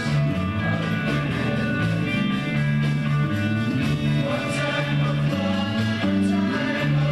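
Rock song with singing, guitar and a steady drum beat.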